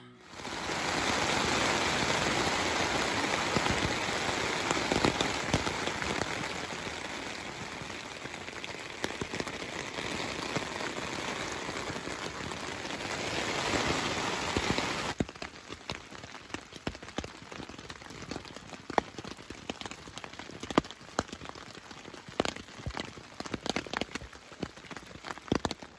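Pouring rain falling steadily. About 15 seconds in it drops to a quieter patter of separate raindrops tapping.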